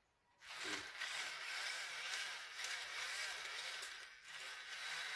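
A 6x6 RC truck's small electric motor and drivetrain run under throttle with a whirring, scraping noise. It starts about half a second in and holds steady, with a short dip near four seconds. A stripped part in the drive (the owner first suspects a gear, later finds a stripped axle pin) leaves one wheel with no drive.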